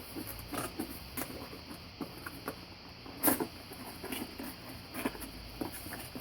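Cardboard box and packaging being handled and opened: scattered light taps, scrapes and rustles, with one sharper click a little over three seconds in.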